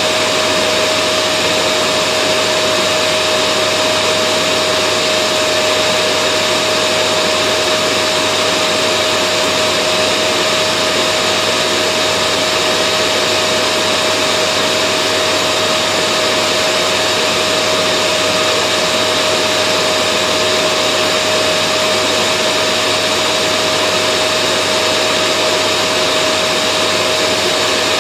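Vacuum cleaner running steadily: an even motor-and-airflow noise with a constant whine, unchanging throughout.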